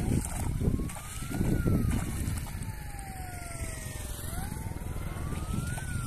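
A siren wailing, its pitch sliding slowly up and down, over the irregular splashing of footsteps wading through shallow flooded paddy water.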